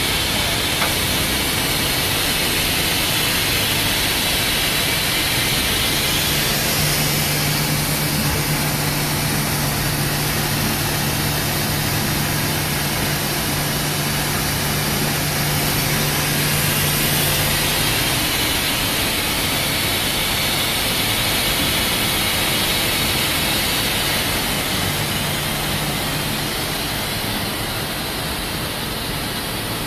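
Okuma MX-45VA vertical machining center running: a steady hiss with a low hum that comes in about six seconds in, drops out around eighteen seconds and returns briefly near the end.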